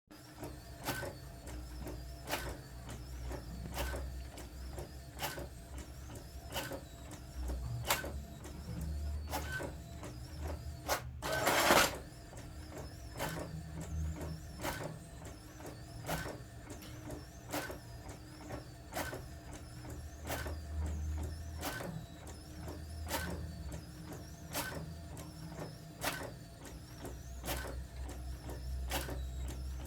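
Brother DCP-T700W inkjet printer printing: a steady mechanical hum with a sharp click repeating about once every 0.7 seconds, and a brief louder rushing burst about 11 seconds in.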